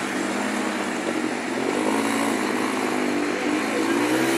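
Small motorcycle engine running and revving, its pitch wavering and climbing near the end, over a steady rushing noise.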